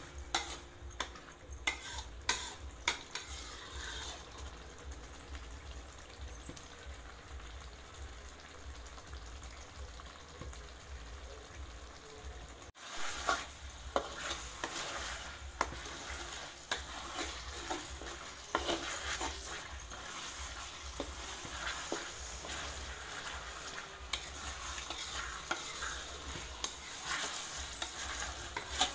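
Spice paste frying and sizzling in oil in a wok while a metal spatula stirs it, scraping and clicking against the wok's sides over and over. The paste is being fried until fragrant before the meat goes in.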